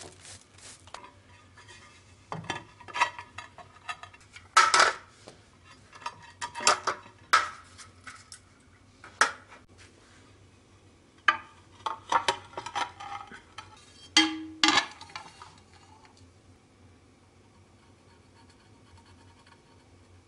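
Scattered clinks, knocks and scrapes of hard objects as hand tools and ceramic floor tiles are handled, set down and scraped. One knock about fourteen seconds in gives a short ring. After about sixteen seconds it goes quiet apart from faint handling sounds.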